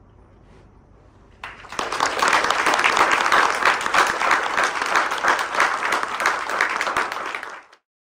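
Audience applauding, starting about a second and a half in and cutting off abruptly near the end.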